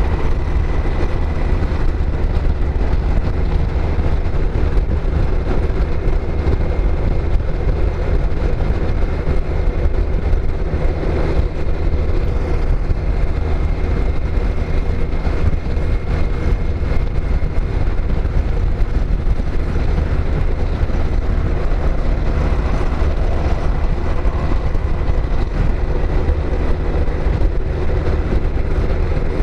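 Kawasaki GTR1400 touring motorcycle's inline-four engine running at steady cruising speed, mixed with a steady wind rush and rumble over the helmet camera's microphone.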